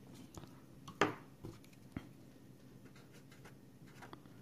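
Light handling noise: a few soft knocks and rustles, the clearest about a second in and a smaller one about two seconds in.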